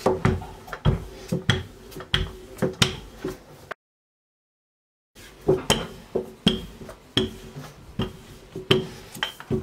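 Wooden rolling pin working baklava dough on a silicone mat: a series of light knocks and clacks, about one every half second to a second. The sound drops out completely for over a second near the middle.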